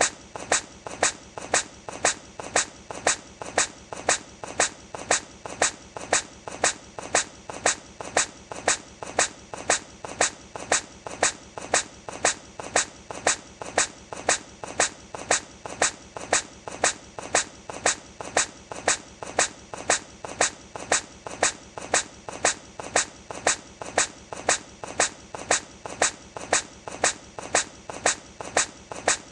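A hedgehog sneezing over and over, one short sharp sneeze about every two-thirds of a second, evenly spaced as in a repeated loop.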